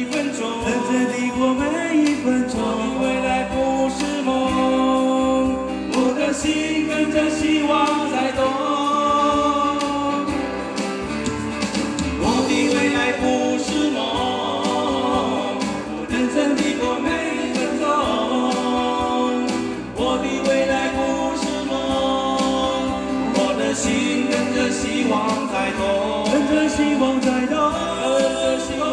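Live band music: male voices singing together in harmony, backed by electric guitars and bass, with a steady beat.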